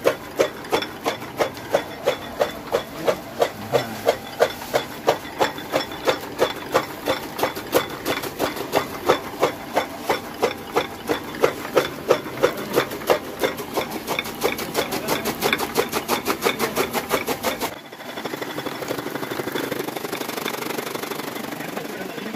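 Motor-driven chaff cutter chopping leafy green fodder: a regular chop about three times a second as the flywheel blades cut the fed stalks. Near the end the beat gives way to a steady whir.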